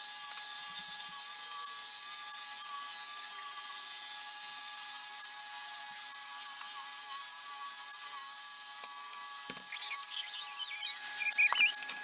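Handheld electric car polisher running steadily with a high, slightly wavering whine as its pad buffs the paint. Near the end it is switched off, and a few clatters follow as it is set down.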